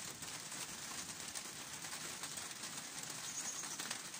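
Light rain falling on leaves and paving: a steady hiss of many small drops. A short high bird chirp comes about three seconds in.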